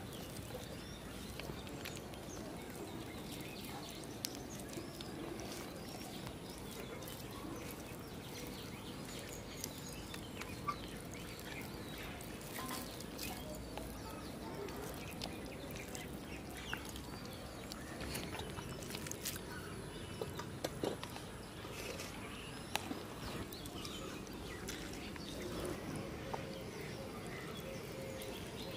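Outdoor rural ambience: a steady low background with birds calling now and then and a few sharp clicks scattered through.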